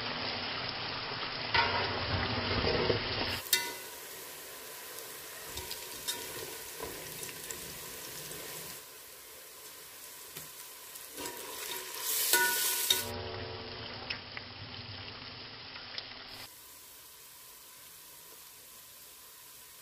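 Sliced onions and whole spices sizzling as they fry in oil in a metal pot, with a metal spoon stirring and scraping against the pot now and then.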